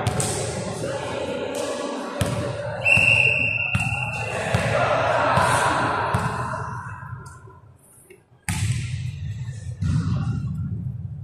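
Indoor volleyball play in a gym: a referee's whistle sounds once, starting about three seconds in and lasting about a second and a half, amid players' voices. A volleyball is struck several times, with a sharp hit about eight and a half seconds in.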